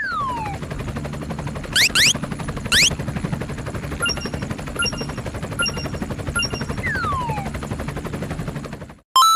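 Cartoon sound effects: a continuous rapid rattle like machine-gun fire with a low hum, overlaid with whistle glides (falling at the start and about seven seconds in, quick rising ones around two and three seconds in) and a few light bell-like dings. The rattle stops suddenly near the end.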